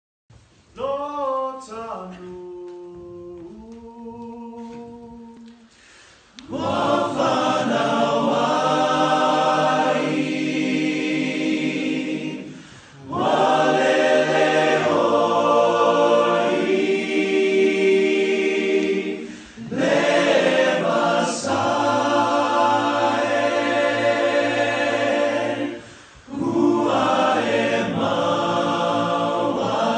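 Unaccompanied choir singing in Samoan. One voice sings alone at first, then a large, mostly male choir comes in at full volume in harmony, in long phrases with short breaks between them.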